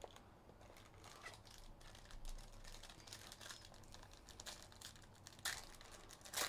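Foil wrapper of a trading card pack crinkling faintly as it is handled and torn open, with two louder crackles, one about five and a half seconds in and one at the end.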